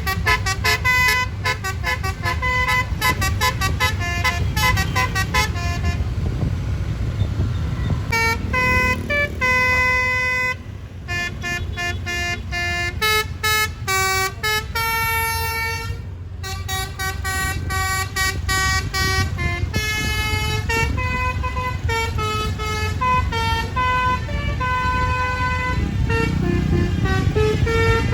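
A bus's Basuri telolet multi-trumpet air horn playing a tune: a quick run of short notes, then longer held notes, then more short stepped notes. A low engine rumble runs underneath and grows louder near the end.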